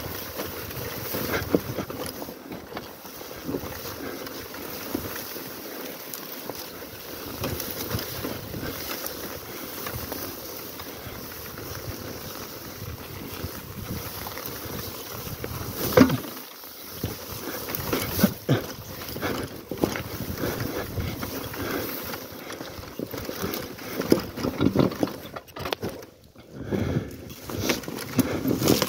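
Honda Tornado trail bike coming down a steep grassy, rocky slope: its engine running low under wind on the microphone. Irregular knocks and rattles come as the bike bumps over tussocks and stones, the sharpest about halfway through and several more near the end.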